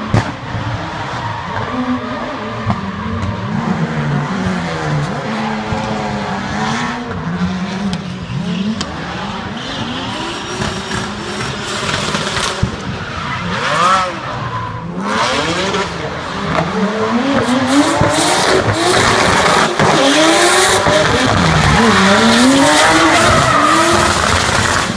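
Drift car engines revving hard, pitch swinging up and down with the throttle, over the screech of tyres sliding sideways. It grows louder in the second half as a car slides close by.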